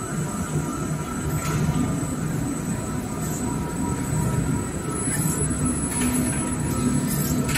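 Toilet paper rewinding line running, with jumbo parent rolls unwinding on belt-driven unwind stands: a steady mechanical rumble with a thin high whine on top and a few faint clicks.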